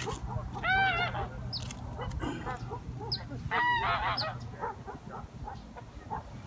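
A flock of geese honking, with loud bursts of repeated honks about a second in and again around three and a half to four seconds, and fainter honks in between.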